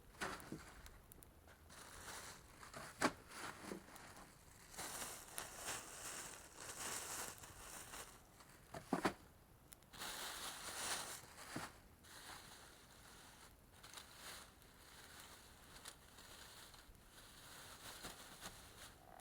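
Crackling and sharp snaps at a small twig fire in a wood-burning camp stove, with bursts of rustling and crinkling.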